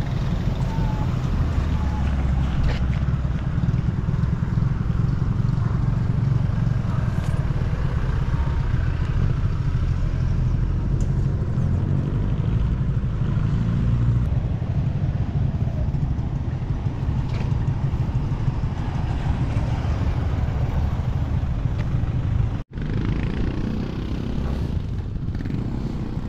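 Outdoor city ambience: a steady low rumble, with a brief dropout to silence about three-quarters of the way through.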